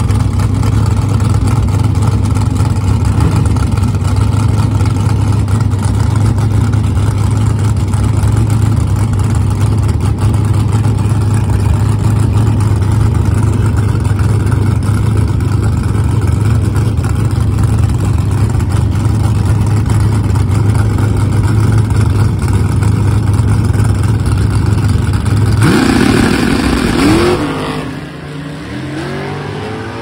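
Fox-body Ford Mustang drag car's engine running with a steady, loud low drone at the starting line, then launching about 26 seconds in: a sudden surge of noise and rising engine pitch as it accelerates hard away down the track, fading within a couple of seconds.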